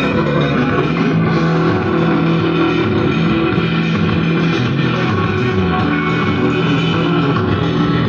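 A song with guitar, played loudly through a single-channel mono-board audio amplifier built on 5200 (2SC5200) output transistors, the MV Collection board, driving a speaker at full volume for a sound test.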